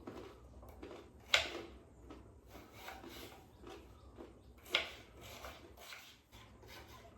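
Kitchen handling noises: two sharp knocks, about a second and a half in and near five seconds in, with softer scrapes and rubbing between them, as things are moved about and set down on the counter.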